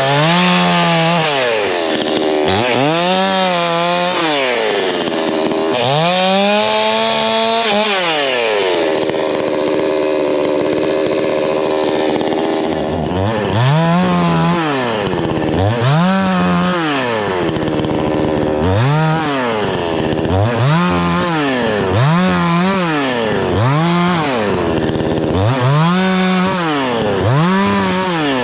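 Cheap 62cc two-stroke gas chainsaw revved up to full throttle and let back down over and over, a dozen or so times, the revs quicker and shorter in the second half, as it cuts through limbs of a downed tree.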